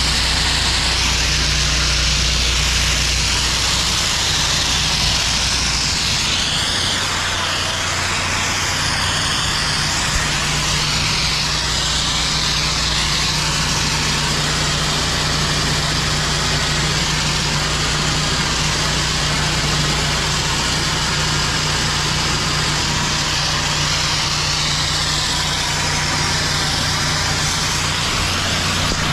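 Pressure-washer water spray hissing steadily as pavers are rinsed, over the steady drone of the pressure washer's engine.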